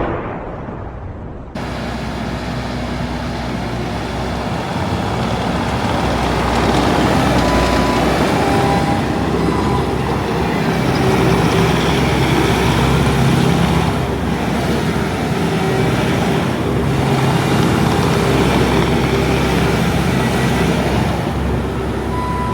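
Bobcat T740 skid steer's four-cylinder turbo-diesel engine running, starting abruptly about a second and a half in, its level swelling and easing a few times. A few short high beeps sound around eight seconds in and again near the end.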